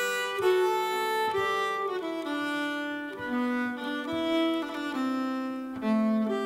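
Live instrumental introduction to a song, led by a fiddle playing slow held notes over chordal accompaniment, the notes changing every half second or so.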